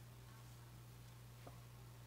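Near silence: room tone with a steady low hum and one faint tick about one and a half seconds in.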